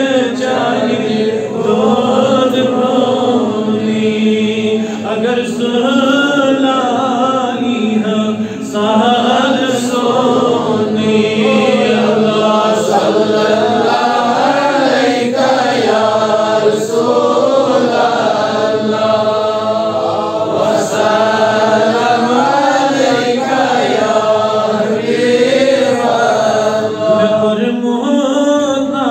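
A man chanting Islamic devotional verse in a slow, melodic voice, holding long notes that waver and bend in pitch.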